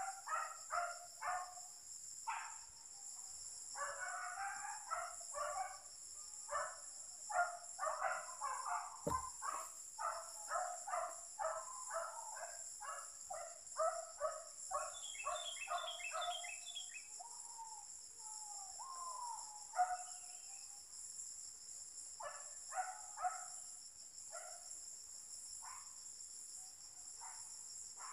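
Steady high insect drone, with a long run of rapid repeated animal calls, two to three a second, that thins out about two-thirds of the way through and returns briefly near the end. A single sharp knock about nine seconds in.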